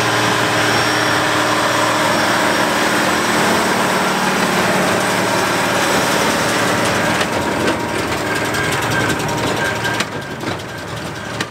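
Deutz-Allis 9170 tractor's diesel engine running steadily under load while pulling a Hesston 4760 big square baler. From about seven seconds in, knocks and clatter from the baler join it, and the sound drops off near the end as the rig moves past.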